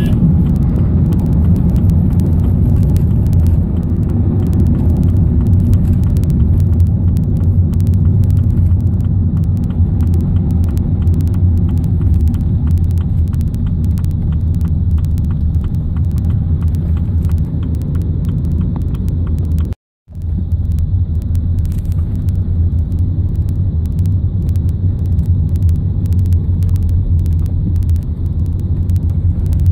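Van engine and road noise heard from inside the cab while driving, a steady low rumble. It cuts out for a moment about two-thirds of the way through.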